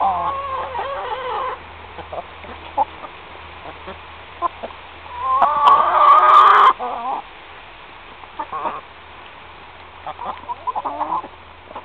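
Hens clucking while they feed, in short repeated calls, with one louder call lasting about a second and a half just past the middle.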